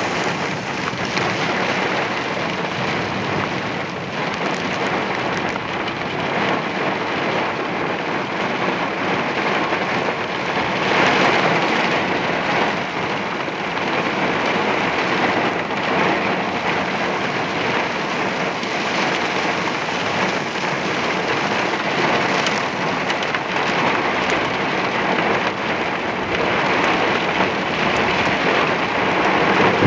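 Heavy thunderstorm rain pouring down in a steady, dense hiss that swells a little about eleven seconds in and again toward the end.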